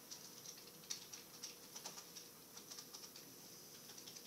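Faint typing on a computer keyboard: quick, irregular key clicks as code is entered.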